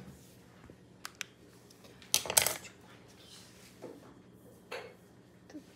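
Plastic pouch of vacuum-packed cooked beets handled on a plastic cutting board: a couple of light clicks, a short crinkle about two seconds in and another near the end.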